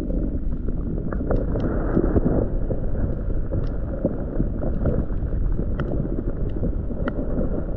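Underwater sound heard through an action camera's waterproof housing: a steady muffled rumble of moving water, with scattered sharp clicks and crackles.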